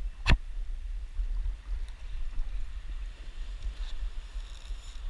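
Wind rumbling on the microphone over small waves washing, with a single sharp knock about a third of a second in.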